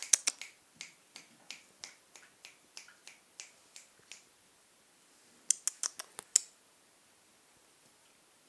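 A series of sharp clicks, about three a second for the first four seconds, then a quick burst of louder clicks around the middle.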